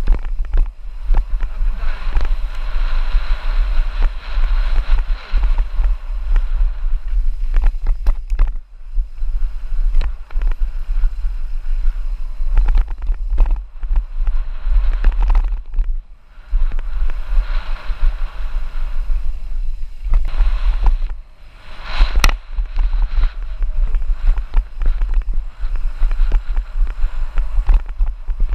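Wind buffeting an action camera's microphone as a hardtail dirt jump bike on slick tyres runs fast down a dirt and gravel bike-park trail. Tyres crunch over the gravel with frequent knocks and rattles from bumps, and the noise drops away briefly three times.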